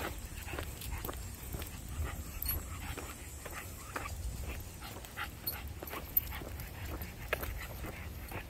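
Two small leashed dogs out walking: quick, irregular steps and scuffs on an asphalt path, with small dog noises, over a steady low rumble.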